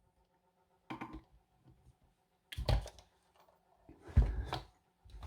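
Handling noise of a padlock and lock-picking tools being moved about: three short bumps and clatters, about a second and a half apart.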